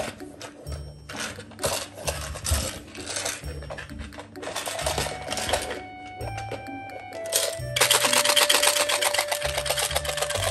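A rattling toy cube shaken in irregular bursts as an Asian small-clawed otter paws and bites at it, turning into a fast, continuous rattle for the last few seconds. Background music with a steady bass line plays throughout.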